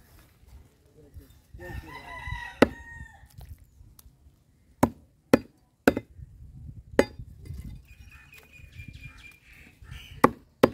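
Heavy cleaver chopping through a common carp's flesh and bone onto a wooden block: about six sharp, separate chops, with a pause near the end. A chicken calls in the background about two seconds in.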